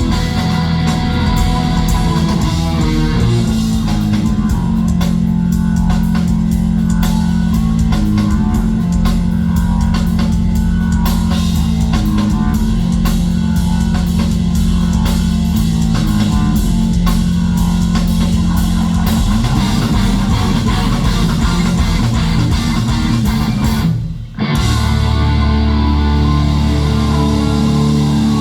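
Progressive metal band playing live at full volume: distorted electric guitars, bass, drums and keyboards in an instrumental passage. About four-fifths of the way through, the whole band cuts out together for a split second, then comes back in.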